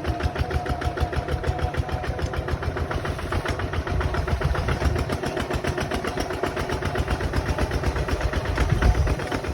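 Bulldozer's diesel engine running with a steady, rapid chugging pulse, swelling briefly near the end.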